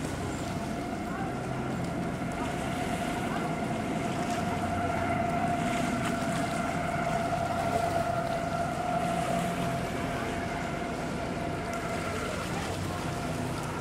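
Outboard or sterndrive engine of a driverless runaway motorboat circling at speed, running as a steady, high engine whine over water and wind noise. It grows somewhat louder in the middle as the boat comes round closer.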